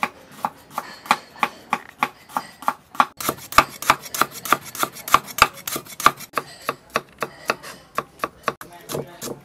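Cleaver chopping on a thick wooden chopping block, slicing lemongrass and then fresh turmeric, in a steady run of sharp strikes about three to four a second, the hardest ones in the middle.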